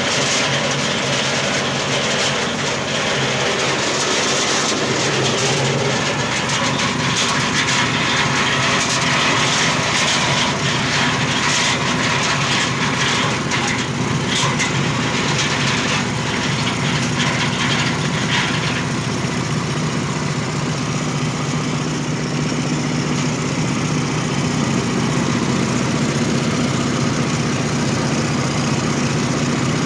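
Areca nut husking machine running, its steady mechanical drone overlaid with a dense clatter that eases off about 19 seconds in, leaving the steady running sound.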